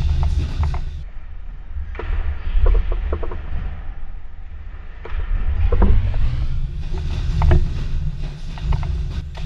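Trampolines creaking and clicking under people bouncing on them, over a heavy low rumble, getting louder about halfway through.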